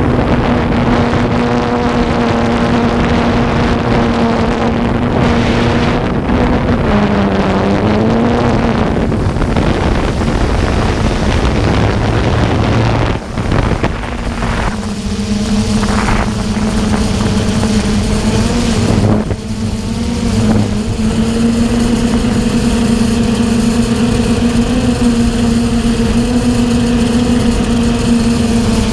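DJI F550 hexacopter's electric motors and propellers humming with a steady pitch, heard close from the drone's own camera over a rush of air. The pitch dips and recovers about seven seconds in, and the sound dips briefly twice further on as the throttle changes.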